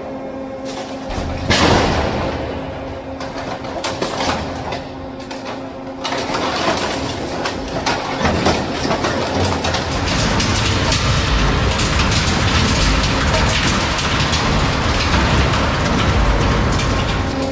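SSI M180 dual-shear two-shaft industrial shredder tearing into a crushed truck: metal crashes and cracks, with a loud crash about a second and a half in. From about six seconds in it becomes a continuous crunching and cracking of metal, louder from about ten seconds.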